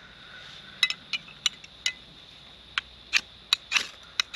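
A fire striker struck over and over to light a gas camp stove: about ten sharp scraping clicks at uneven intervals.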